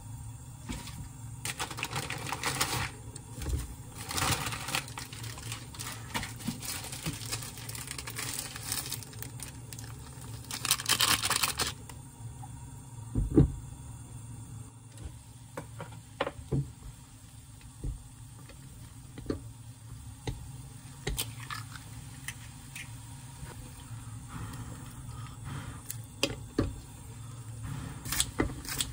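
Small handling sounds while instant ramyeon is cooked in a pot: rustling and tearing noises, one solid knock near the middle as a glass pot lid is set down, and scattered light clicks over a low steady hum.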